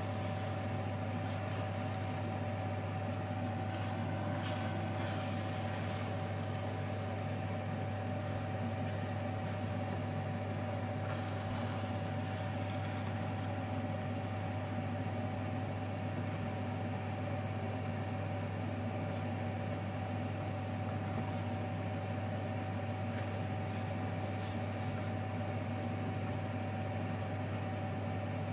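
Wooden spoon stirring mince and gravy in a stainless steel pot, with faint scattered scrapes and knocks, over a loud steady low hum with a thin whine above it.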